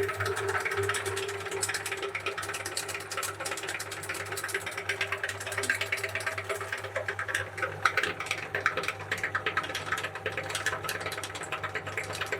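Electric meat grinder running with a steady low hum and a fast, irregular crackle of clicks as it grinds chocolate pista ice-cream cones.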